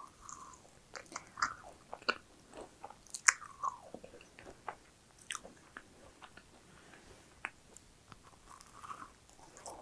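A macaron being chewed close to a clip-on microphone: soft crunches and wet mouth clicks, with one crisper, louder crunch about three seconds in. Another bite is taken near the end.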